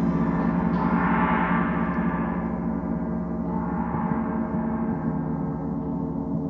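A 38-inch Paiste Symphonic gong ringing in a sustained, steady wash of low tones. Its higher shimmer swells about a second in and again near four seconds, with no sharp strike.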